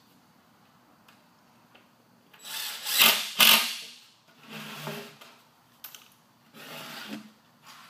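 Cordless drill/driver driving screws into wooden boards: one long, loud run about two and a half seconds in, then two shorter, quieter runs.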